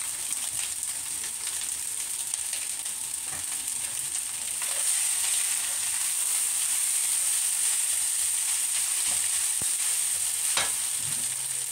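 Egg fried rice sizzling in a stainless steel wok while a silicone spatula stirs and tosses it. The sizzle grows louder a few seconds in as the rice is turned over, and there is a single knock near the end.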